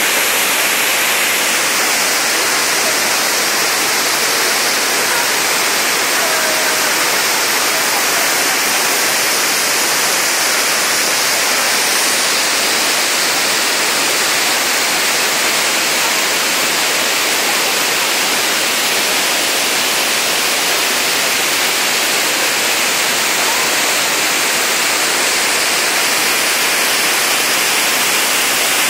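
Large waterfall cascading over rock: a loud, steady, unbroken rush of water.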